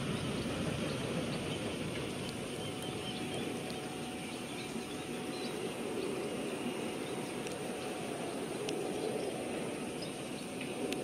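Twin jet engines of a Boeing 737 airliner at takeoff power as it lifts off and climbs away: a steady, even roar with no clear whine.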